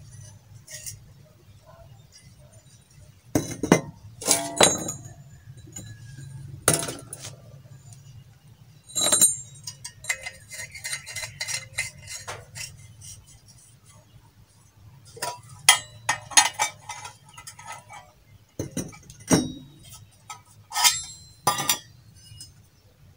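Stainless-steel parts of a home-made waste-oil camping stove clinking and knocking against each other as the burner pot, pipe and fuel cup are handled and fitted together. About a dozen sharp metal knocks with a short ring come at irregular intervals, in clusters near the start, the middle and the end.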